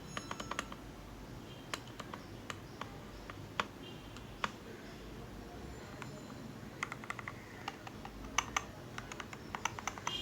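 Typing on an SK64S mechanical keyboard with linear Gateron optical yellow switches and Cherry keycaps. Quick runs of keystrokes come at the start and again in the last few seconds, with slower single presses in between.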